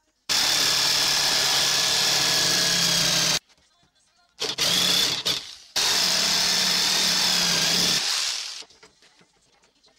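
Corded jigsaw cutting through a wooden board, running in three bursts: about three seconds, a pause, a short burst of about a second, then about two seconds more before it winds down.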